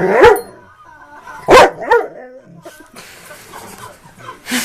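Bullmastiff barking three times: one bark at the start, then two more close together about a second and a half in.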